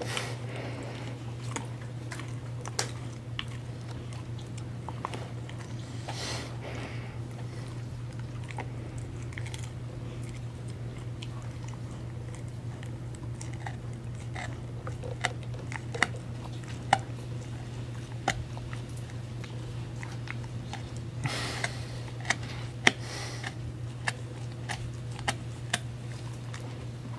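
A husky gnawing a Purina Busy Chewnola chew treat: irregular crunches and sharp clicks of its teeth on the chew, coming thicker in the second half.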